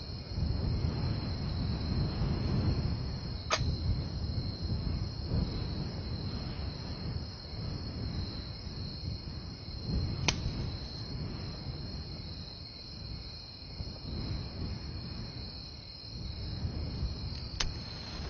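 Quiet room tone: a steady high-pitched tone over a low rumble, with three faint clicks.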